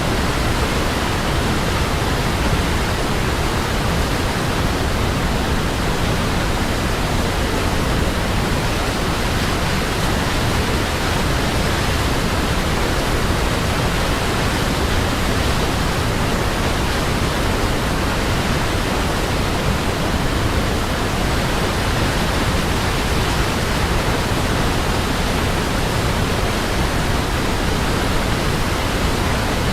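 Waterfall: a steady, unbroken rush of falling water, loud and even, with no changes.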